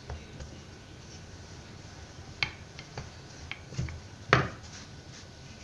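Hand-working dough on a floured countertop: soft handling, then a few light taps and one sharper knock a little past four seconds as the wooden rolling pin is taken up.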